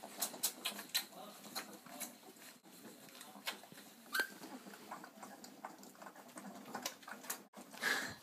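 Litter of four-week-old Irish setter puppies suckling: a steady run of small wet smacking and clicking sounds, with a brief high squeak about four seconds in and a louder short burst near the end.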